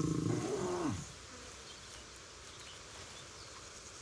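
A lion humming: a low, drawn-out call whose pitch wavers and then drops before it stops about a second in. It is the soft hum lions make while resting and grooming. Faint steady outdoor background follows.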